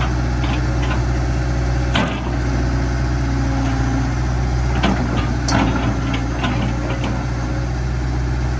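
Caterpillar E120B tracked excavator's diesel engine running steadily, with a few short knocks as the bucket is worked.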